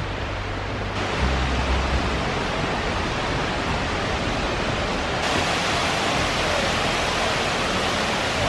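Large waterfall: steady rushing water. It gets louder and hissier in two steps, about a second in and about five seconds in.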